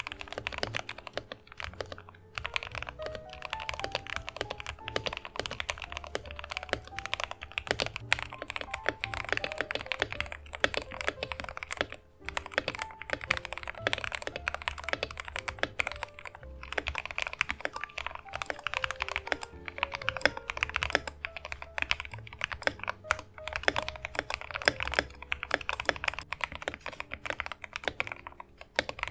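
Continuous typing on a modded Yunzii KC68 mechanical keyboard: a dense, steady clatter of key presses, with short breaks here and there, with background music underneath.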